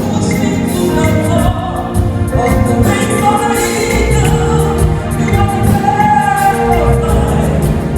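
Gospel choir singing with band accompaniment and a steady beat.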